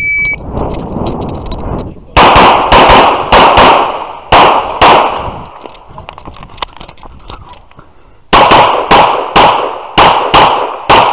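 A shot timer gives one short beep as the start signal. A pistol then fires two quick strings of shots a few seconds apart, mostly in fast pairs, each crack ringing out briefly.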